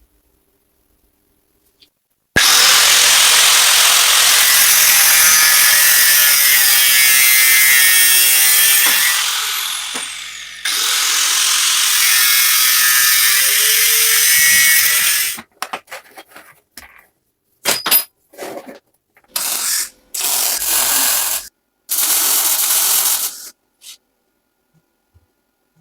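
Handheld power tool running in long spells: about seven seconds, winding down, then about five seconds more, followed by several short bursts.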